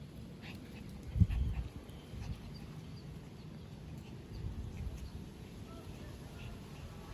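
A dog making faint sounds over a low steady rumble, with a single thump about a second in.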